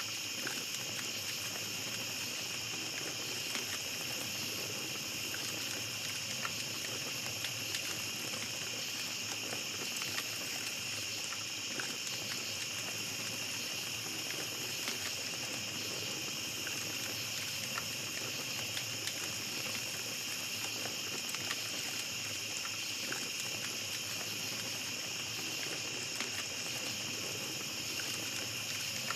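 Small campfire crackling with scattered light pops, over a steady chorus of night insects such as crickets trilling in several high even bands.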